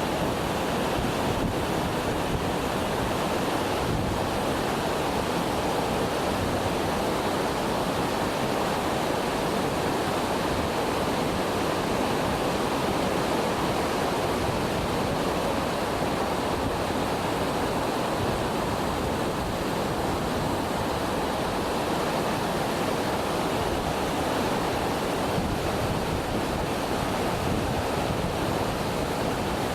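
Waterfall roaring: a steady rush of falling water that holds one level throughout.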